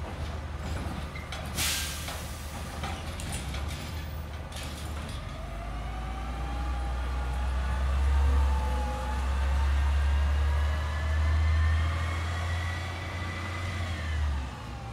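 Autocar Rapid Rail garbage truck's diesel engine running, then revving up for several seconds with a slowly rising whine before it eases off near the end. A short sharp hiss of air comes about one and a half seconds in.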